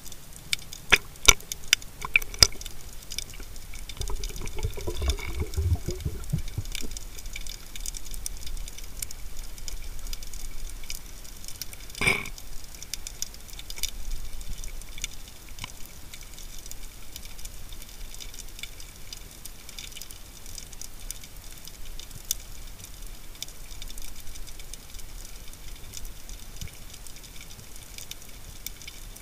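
Underwater ambience picked up by a camera in its waterproof housing: a steady faint crackle of small clicks, with a run of sharper clicks in the first couple of seconds and a low rumble of water movement about four to seven seconds in. One sharp knock about twelve seconds in.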